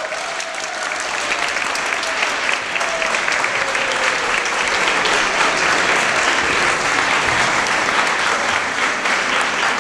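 Audience applauding, building over the first second or so and then holding steady.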